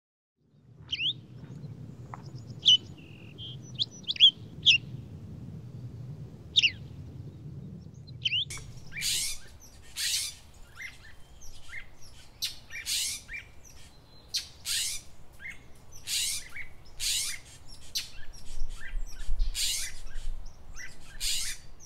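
Birds calling: scattered short chirps and whistles at first, then from about eight seconds in a repeated short, buzzy call roughly once a second.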